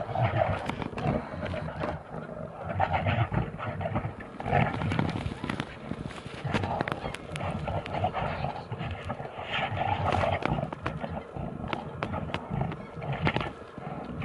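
Two brown bears fighting, growling and roaring in bursts every second or two, with scattered knocks as they grapple.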